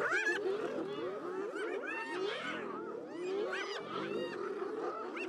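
A pack of spotted hyenas calling together: many overlapping calls that rise and fall in pitch.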